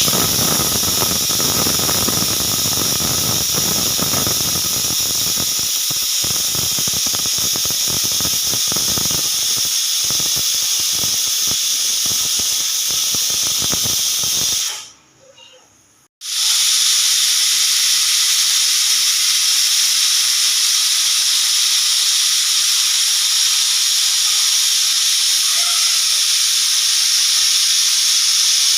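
Pressure cooker whistle: its weighted valve releasing steam with a loud, high hiss, sputtering at first. It cuts off a little past halfway for about a second and a half, then starts again and runs steadily.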